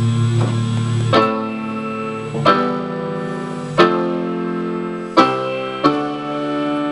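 Electric keyboard and electric guitar playing sustained chords together, a new chord struck about every second and a half and left ringing.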